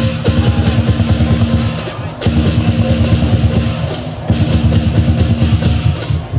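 Lion dance drum and cymbals playing loud, fast drumming, with short breaks about two seconds in and again about four seconds in.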